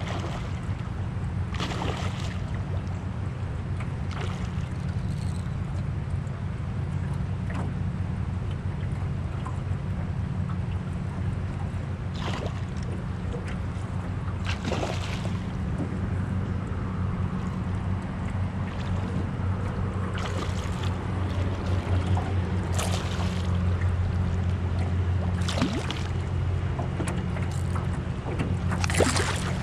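Electric trolling motor running with a steady low hum, with several brief noises over it, the loudest near the end.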